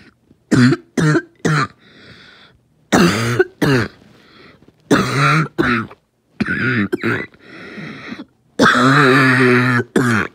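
An asthmatic coughing fit: repeated bursts of harsh coughing and throat clearing, with breaths drawn in between them. Near the end comes one long, drawn-out voiced cough.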